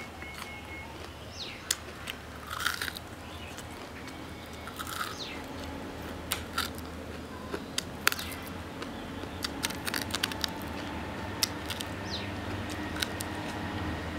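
Biting and chewing crispy double-fried pork: many irregular sharp crunches as the crust breaks between the teeth.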